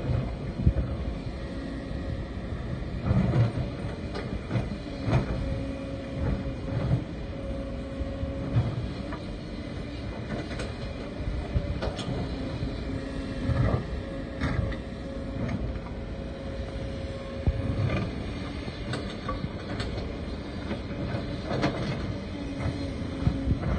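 Kobelco SK140 hydraulic excavator's diesel engine running under load while digging rock, a steady hum with irregular clanks and knocks of the bucket against stone.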